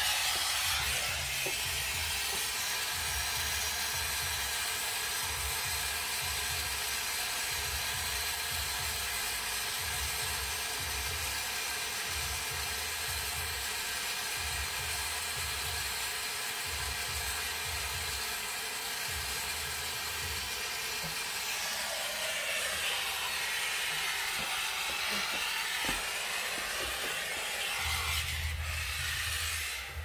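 Gas brazing torch flame hissing steadily as it heats the pipe joints at a refrigerator compressor, with an uneven low rumble under the hiss.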